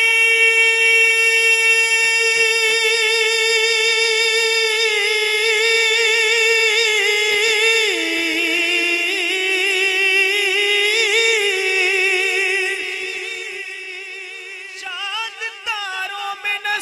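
A man singing a naat without accompaniment, holding one long note with wavering ornaments. The note steps down in pitch about eight seconds in and fades away near the end, before the next phrase begins.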